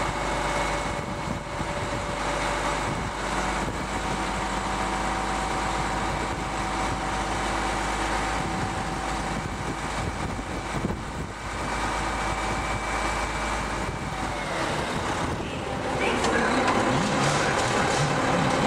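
Cummins diesel in a roll-off truck running steadily while its hydraulics lower the roll-off hoist, with a steady whine over the engine that stops about fourteen seconds in. Near the end a louder, busier stretch of truck engine and hydraulics follows as a tarp arm starts to rise.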